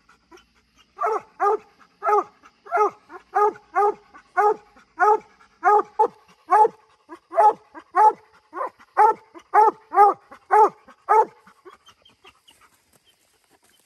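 Black-and-tan coonhound barking treed at the foot of a tree: a steady run of about twenty loud barks, roughly two a second, telling that it has a raccoon up that tree. The barking stops about eleven seconds in.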